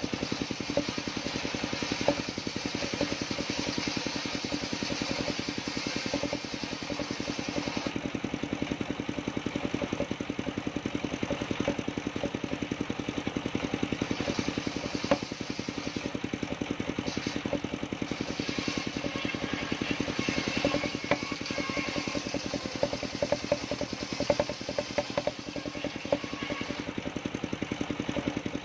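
Engine-driven circular sawmill running steadily while its large blade rips a coconut trunk lengthwise; the cutting noise is strongest for the first eight seconds or so. A few sharp knocks of timber in the second half.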